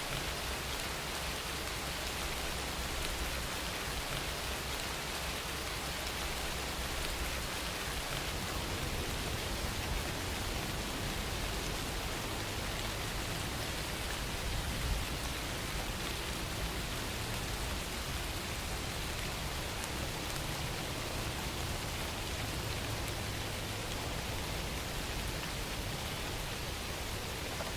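Steady rain falling, an even hiss with occasional drops.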